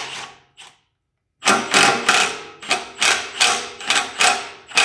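Cordless impact wrench hammering on a starter mounting bolt to loosen it. A short burst at the start, a pause, then a run of quick bursts, about three a second.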